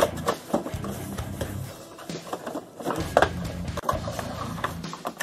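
Cardboard miniature booster box and plastic bag being handled and opened, with crinkling and sharp clicks and taps; the loudest snaps come right at the start and about three seconds in. Guitar music plays underneath.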